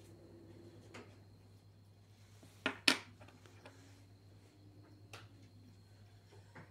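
Metal coins clicking as one is set down on a concrete floor among others and another picked up: two sharp clicks in quick succession near the middle, with a couple of fainter taps before and after, over a steady low hum.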